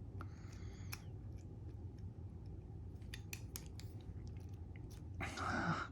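Faint, scattered metallic clicks and small scrapes of a disc detainer pick turning the discs inside a Davidson 70mm disc detainer padlock, with a brief louder scrape near the end.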